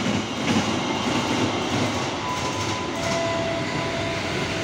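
Freight train of empty flat wagons rolling past, the wheels clacking over the rail joints. The rumble eases as the last wagons go by, with a faint thin whine in the second half.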